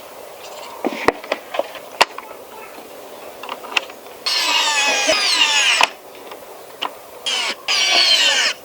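Small electric screwdriver driving screws into the model truck kit, whirring in one burst of about a second and a half and then two shorter bursts near the end, its pitch sagging as the screws tighten. Light clicks and taps of parts being handled come before it.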